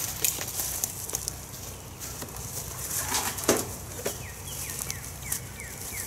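Scattered knocks and scrapes of wooden beehive boxes being handled, with a louder scrape about three and a half seconds in. From about four seconds a bird repeats a short falling chirp several times in quick succession.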